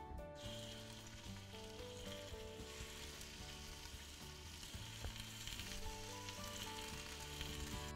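Pieces of raw hare meat sizzling and frying as they are laid into hot olive oil in a stainless steel pressure cooker to brown. The sizzle starts about half a second in and carries on steadily.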